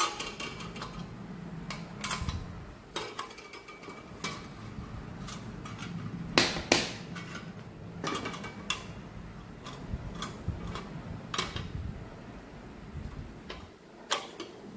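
Metal clinks and taps as flat sheet-metal clock parts, nuts and a small open-end wrench are handled and knocked against each other, over low rubbing from handling. Two sharp clinks come close together a little under halfway through.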